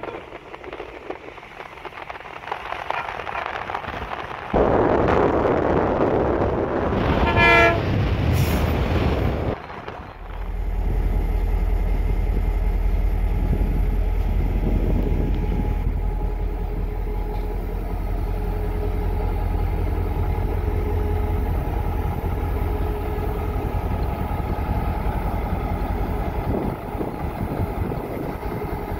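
EMD GT36 CW diesel locomotive approaching and passing close, loud from about four seconds in, with a short horn blast about seven and a half seconds in. Then, from about ten seconds in, an EMD GL18B diesel locomotive idling with a steady low hum.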